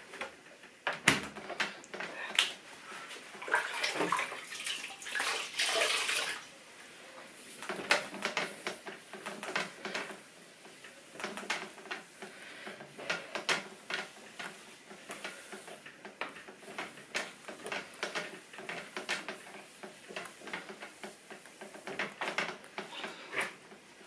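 Cloth rubbing over a stainless-steel refrigerator door in many quick wiping strokes, with a few knocks and clatter.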